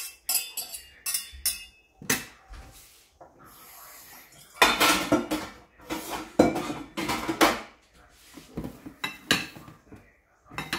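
A metal fork scraping and clinking against a stainless steel saucepan, with a burst of louder clanking of the pot and utensils a little before the middle. Near the end come lighter knocks of dishes and a glass bowl being set down.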